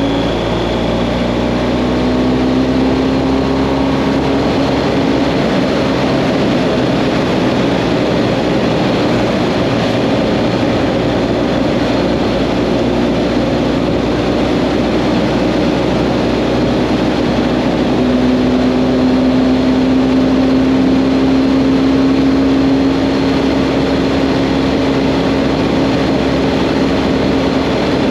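BMW GS Adventure motorcycle cruising on the open road: a steady engine drone under a rush of wind and road noise, the engine note rising a little in the first couple of seconds and then holding steady.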